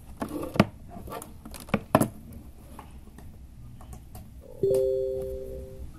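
A few sharp clicks in the first two seconds, then a steady two-note electronic chime that starts about 4.7 seconds in and holds for about a second before cutting off.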